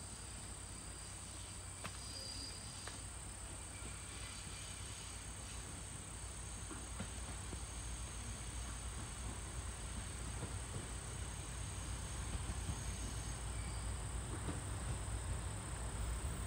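Insects singing steadily in a high, even band. Beneath it, the low rumble of an approaching KiHa 200 series diesel railcar slowly grows louder.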